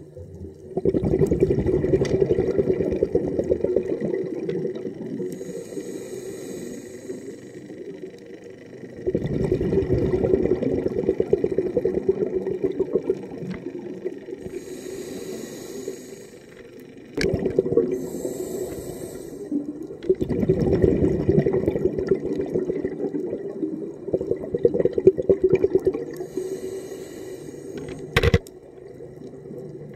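Scuba diver breathing through a regulator underwater: exhaled bubbles burble for several seconds at a time, alternating with shorter hissing inhalations. There is a single sharp knock near the end.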